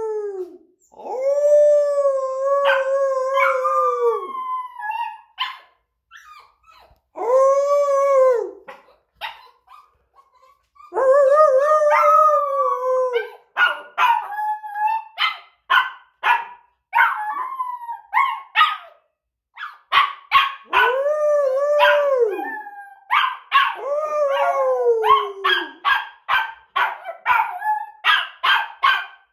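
Puppy howling in a run of long held howls, each a few seconds long, that rise, hold and fall away. Short yips and barks come in between, thickest in the middle and near the end.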